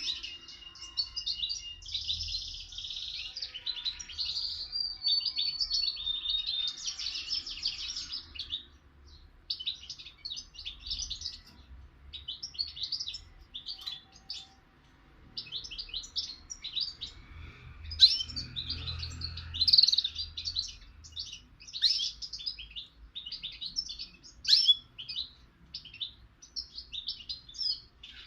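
A young caged songbird singing a long, rapid twittering song of quick chirps and short trills, broken by brief pauses.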